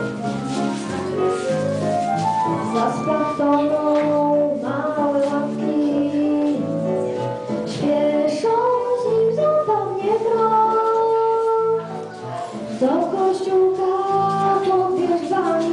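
A girl singing a song into a microphone over instrumental backing with a repeating bass pattern, holding some long notes.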